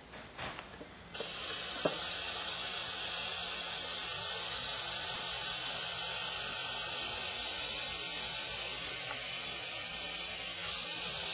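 Air-powered Mityvac-type vacuum brake bleeder switched on about a second in and running with a steady hiss, sucking brake fluid out through the front brake caliper's bleeder nipple. A few light clicks come just before it starts.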